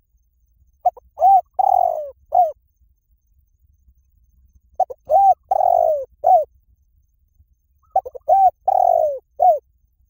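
Spotted dove cooing: three phrases about three seconds apart, each a few short arched coos with one longer coo that falls in pitch.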